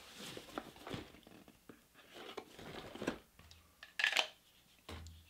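Pocket knife cutting and scraping through the tape on a cardboard shipping box, with scratchy tearing sounds. About four seconds in comes a sharper, louder snap.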